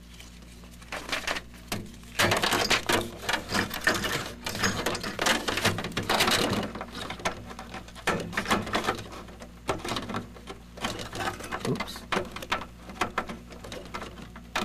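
Handling noise from a flat IDE ribbon cable being manoeuvred and its connector pressed onto the blue IDE header on a motherboard: a dense run of rustles, scrapes and small plastic clicks, busiest in the first half, over a steady faint low hum.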